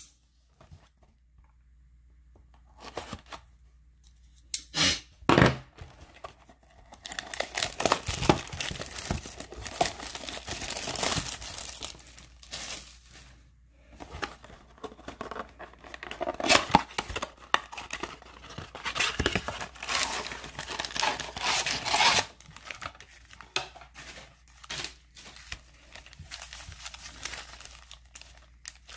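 Plastic wrap and cardboard of a trading-card blaster box being torn open by hand, followed by crinkling as the wrapped card packs are pulled out and handled. It starts with a few light taps, then comes a long stretch of dense tearing and crinkling, and only scattered rustles near the end.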